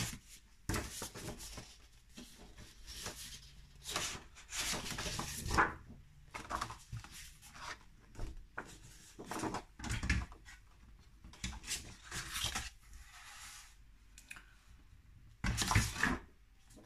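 Sheets of craft paper rustling and sliding as they are leafed through and handled, in irregular bursts, with a longer, louder burst near the end.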